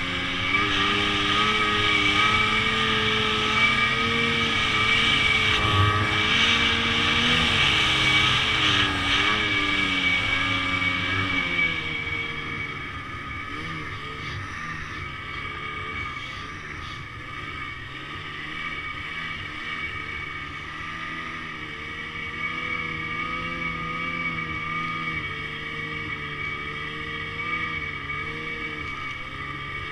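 Ski-Doo Summit 850 E-TEC snowmobile's two-stroke twin engine running, its pitch wavering with the throttle. It is louder for the first dozen seconds, then drops to a quieter, lower run.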